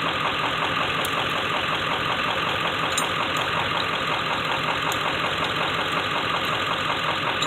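Vehicle engine idling steadily, with a few faint ticks over it.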